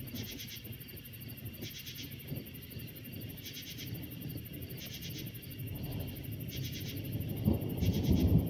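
Night insects calling: a pulsing chirp repeated about every second and a half over a steady high-pitched insect chorus. Thunder rumbles low underneath and swells near the end.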